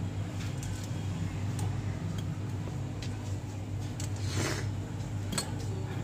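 Steady low machine hum, with a few faint light clicks and a short rustle about four and a half seconds in as a small metal charging jack and tweezers are handled.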